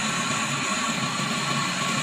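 A machine running steadily: an even rushing noise with a constant high whine, no change in pitch or level.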